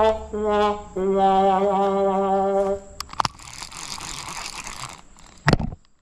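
A person's long, drawn-out vocal groan held on a low note for nearly three seconds, followed by about two seconds of rustling hiss and a sharp knock near the end.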